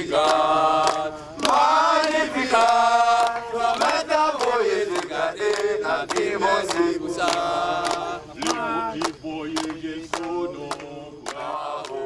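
Background music: a chanted, choir-like vocal song over a steady percussive beat of about two strikes a second.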